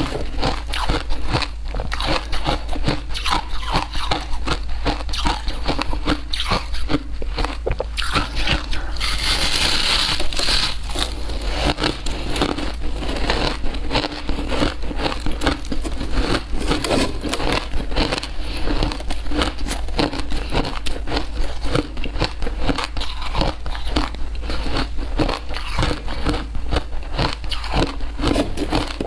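Packed shaved ice being bitten and chewed: a dense, continuous run of crisp crunches and crackles, with a louder, hissier crunch about nine seconds in.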